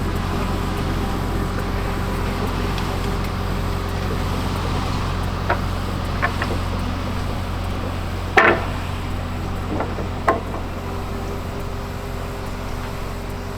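Skid steer engine running steadily, with several sharp knocks on wood from the truss work, the loudest about eight seconds in.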